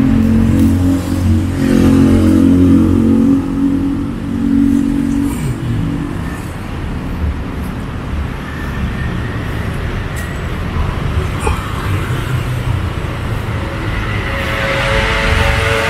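Street traffic: a motor vehicle's engine is loud and close in the first few seconds, then fades. Another vehicle grows louder near the end.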